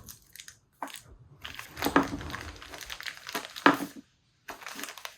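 Parts from a swingarm bearing kit being handled: plastic packaging crinkling and rustling in bursts, with a few sharp clicks.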